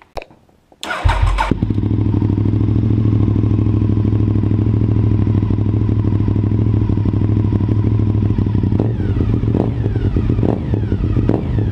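Honda RC51's 999 cc V-twin engine started about a second in, catching almost at once, then idling steadily.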